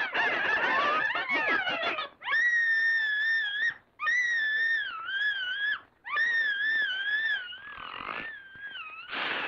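Cartoon chickens squawking together in a jumble for about two seconds, then three long, high, wavering screams from a cartoon mouse, each about a second and a half, followed by softer wavering cries near the end.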